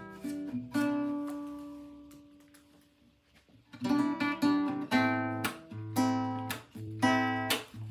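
Background music on acoustic guitar: a strummed chord rings out and fades almost to silence, then steady rhythmic strumming starts again about four seconds in.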